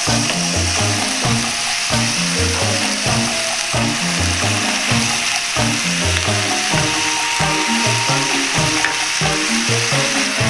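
Chicken pieces and dried bamboo shoots sizzling steadily in a hot frying pan as they are stir-fried, over background music.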